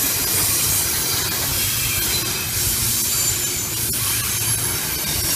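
A train rolling past: a steady rush of wheels on rail with faint high squealing tones, and a sharp click about four seconds in.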